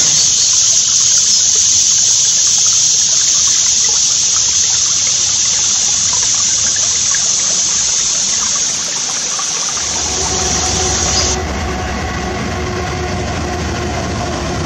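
A steady high hiss that cuts off suddenly about eleven seconds in. From about ten seconds in, a diesel freight locomotive's engine rumbles as the train passes.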